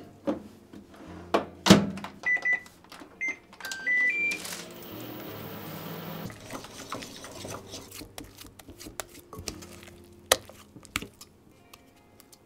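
Hitachi microwave oven: the door shuts with a thunk, a string of short button beeps follows, then the oven starts running with a steady hum.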